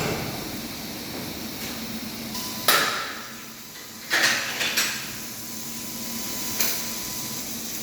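100-watt CNC laser cutter with a rotary attachment running a cutting job on PVC pipe: a steady hum and hiss, broken by four short, sharp bursts, the loudest about three seconds in. A faint thin whine comes and goes.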